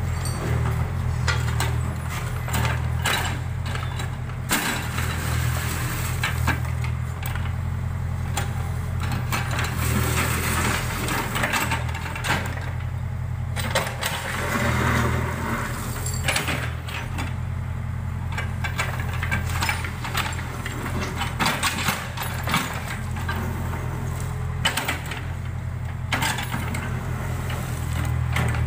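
Backhoe loader's diesel engine running steadily, with frequent clanks and scraping as the bucket levels loose soil.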